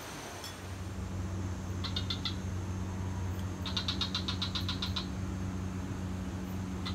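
Bursts of rapid, evenly pulsed high chirping from a small animal calling at night, three times, the middle burst the longest, over a steady low hum.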